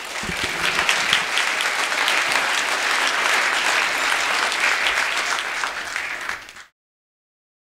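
Audience applauding, many people clapping together, cutting off suddenly near the end.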